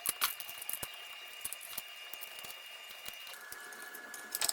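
Scattered light clicks and taps of small parts being handled and fitted as a servo drive is reassembled, a few sharper clicks near the end. A faint steady high tone runs underneath and drops in pitch about three seconds in.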